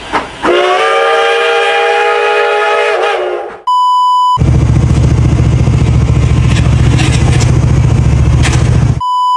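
A loud, held blare of several tones together, horn- or whistle-like, lasting about three seconds. A short 1 kHz censor bleep follows, then about four and a half seconds of a lawnmower engine running loud and rough. A second bleep comes near the end.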